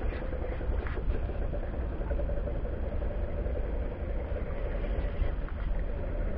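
An engine running steadily: a constant hum over a low rumble.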